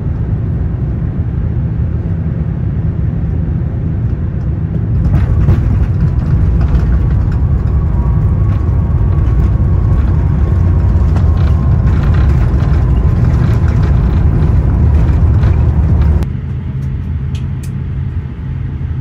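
Airliner cabin noise: a steady low rumble of engines and airflow that grows louder about five seconds in. It changes abruptly near the end, where one clip gives way to another.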